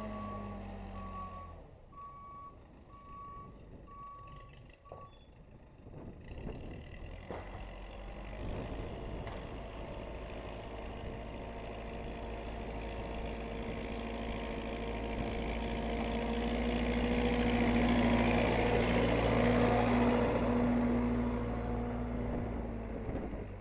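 Case 580C backhoe's backup alarm beeping at a steady pace for the first few seconds, then stopping, over the machine's engine. The engine drops low, then builds and grows louder, loudest about three-quarters of the way through, and eases off near the end.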